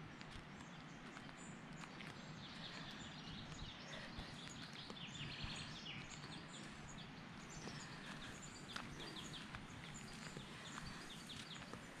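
Birds chirping and singing faintly, the calls starting a few seconds in and thickest midway, over a steady low outdoor background hum.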